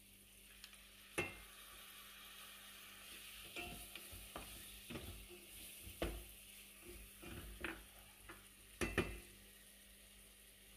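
Meat and onions with freshly added grated tomato frying in a stainless steel pot with a faint sizzle, while a wooden spoon stirs and knocks sharply against the pot several times at irregular intervals.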